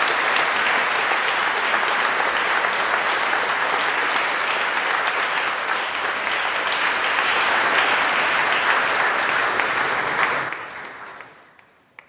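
Audience applauding at the close of a speech, a steady dense clapping that dies away over a second or so near the end.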